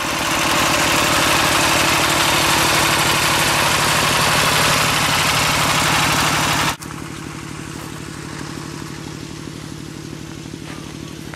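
Small single-cylinder diesel engine running steadily at close range with a fast, even chugging as it belt-drives an irrigation water pump. About seven seconds in the sound drops abruptly to a quieter steady engine note.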